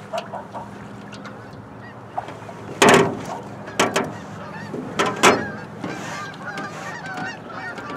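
Geese honking, the calls getting busier in the second half, over a low steady hum. Several loud knocks and thumps come about three, four and five seconds in as a walleye is netted into an aluminium boat.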